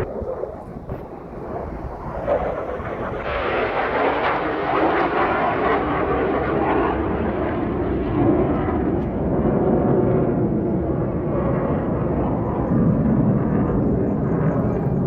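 Fighter jet engine noise from a jet flying past, a loud steady rushing sound that swells about three seconds in and stays strong.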